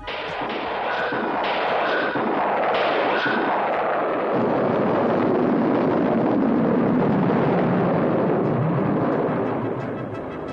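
Cartoon sound effect of spaceship rocket engines igniting: a loud rushing roar that builds, holds and dies away near the end.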